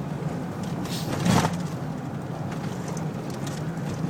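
Car running at road speed heard from inside the cabin: a steady low engine hum with road noise, and a brief louder rush about a second in.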